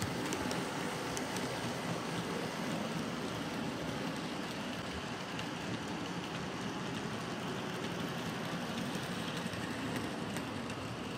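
OO gauge model goods train running past close by: a steady rumble of wagon wheels on the rails, with occasional light clicks.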